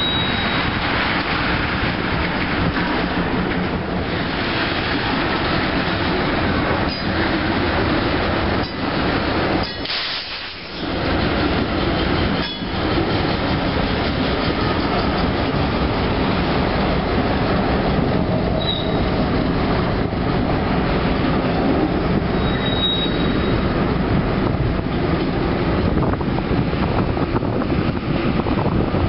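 Freight train passing close by: tank cars' steel wheels rumbling and clacking over the rail joints, then two diesel-electric locomotives go by and draw away. A brief high wheel squeal comes about two-thirds of the way through.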